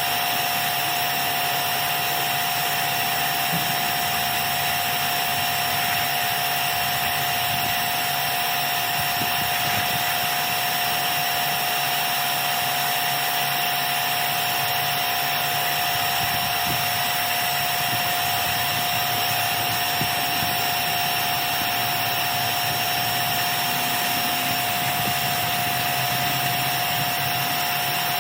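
Electric pressure washer running continuously: a steady spray hiss under a constant motor whine.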